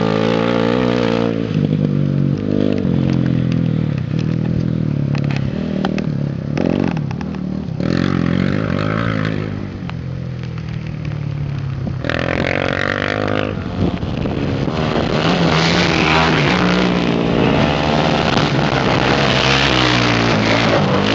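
Racing quad (ATV) engines revving hard as they approach and pass on a dirt track, the engine note rising and falling as the throttle changes. A louder rush of engine and tyre noise builds near the end as a quad speeds close by.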